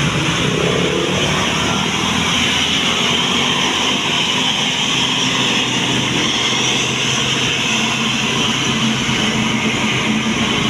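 Steady engine and tyre noise of a passing tour bus, with no horn sounding.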